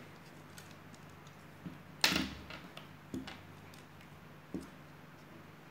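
LEGO plastic pieces being pulled apart, with wheels taken off the model and set down on the table: a few scattered short clicks and knocks, the sharpest about two seconds in.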